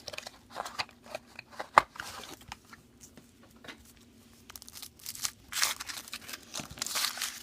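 Foil wrapper of a chocolate surprise egg crinkling and tearing as it is unwrapped, with scattered sharp clicks and snaps. The rustling is loudest from about five and a half seconds in until near the end.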